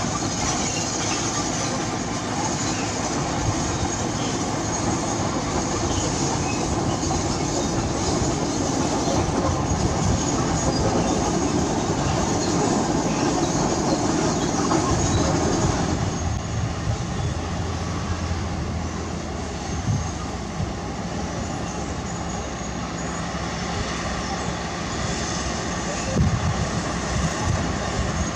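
Heavy diesel earthmoving machinery running and working, a continuous engine rumble with a metallic clatter. The sound thins and gets lower about halfway through.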